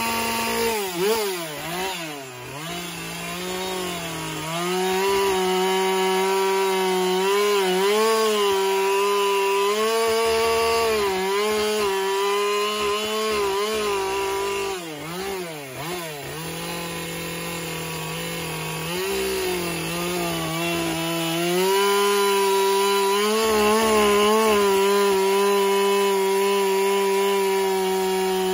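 Chainsaw carving into an upright wooden log, its engine pitch rising and falling as the throttle is worked. It drops back briefly toward idle about a second in and again around fifteen seconds in, then runs at high revs through the cut near the end.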